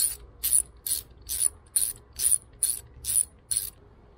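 Hand ratchet wrench clicking as it backs out an anode cover bolt on an outboard's cylinder head: about ten quick ratcheting rasps, roughly three a second, that stop shortly before the end.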